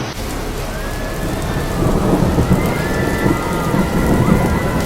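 Hurricane wind and heavy rain: a loud, dense rumble of gusts and downpour that grows somewhat louder about two seconds in, with faint high whistles gliding over it.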